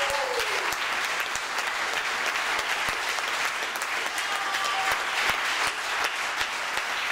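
Small audience clapping steadily, a dense patter of many hands.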